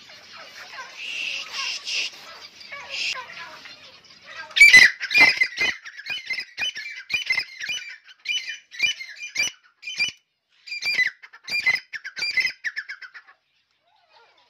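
Francolins (teetar) calling in a long run of harsh, repeated squawks, about two a second. The calls are faint at first, loudest about five seconds in, and stop a little before the end.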